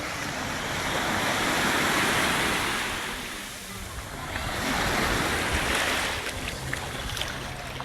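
Sea waves washing in, surging twice, about three seconds apart.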